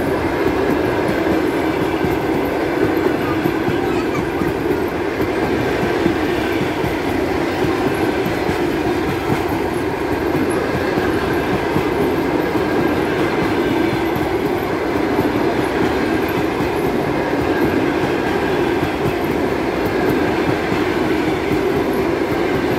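Russian Railways passenger coaches rolling past at speed: a loud, steady noise of wheels on the rails.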